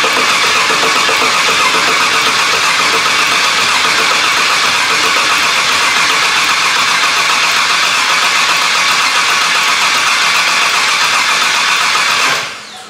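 Rebuilt GM LT V8 being cranked over steadily on the starter, turning the engine over to build oil pressure before the first start. The sound fades out quickly near the end.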